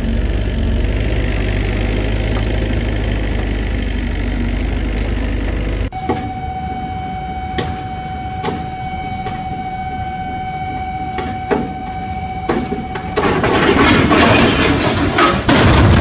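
An excavator engine runs with a steady low drone. About six seconds in, it cuts off abruptly to a steady high tone, possibly a crane alarm, with scattered sharp clicks. From about thirteen seconds a loud crash and grinding follows as a container swinging from a rubber-tyred gantry crane strikes the ground.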